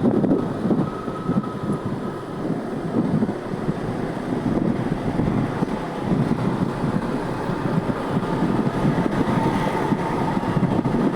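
Road traffic rumbling past with wind buffeting the microphone, with a faint held tone about a second in and another near the end.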